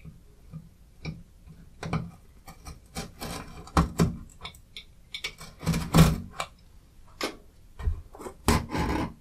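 Utility knife blade scraping and slicing along the seams of a small cardboard box, cutting its seal, in a series of short scratchy strokes. Near the end the cardboard lid is handled as it is pulled open.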